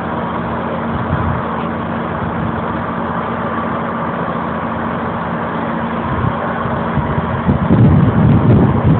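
Steady drone of a heavy engine running. Wind buffets the microphone in the last second or so.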